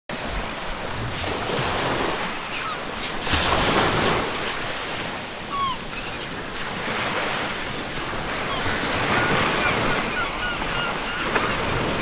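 Ocean surf breaking and washing in a continuous rush that swells and eases every few seconds. Seagulls give short cries now and then, with several in quick succession about nine seconds in.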